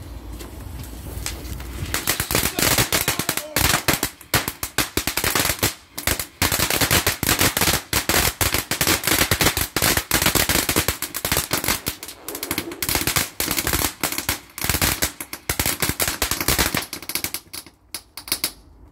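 Firework going off in a long, rapid barrage of sharp bangs and crackles, starting about two seconds in and thinning to a few last cracks near the end.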